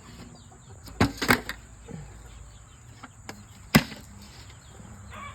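A few sharp knocks and clacks of something hard being handled, two close together about a second in and the loudest near the end, with small birds chirping faintly in the background.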